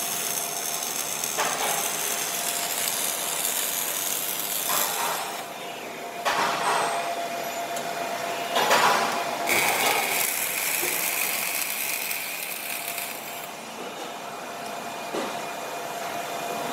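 Robotic MIG welding arcs on a steel frame, a dense crackling sizzle that stops and starts a few times. A steady whine joins for a few seconds after the middle.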